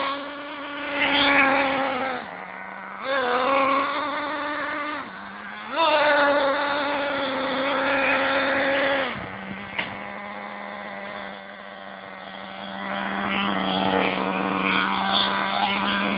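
Nitro RC buggy's STS D30M engine during break-in, idling with a steady buzz and rising to a higher steady whine in three throttle bursts of a few seconds each, then settling back to idle.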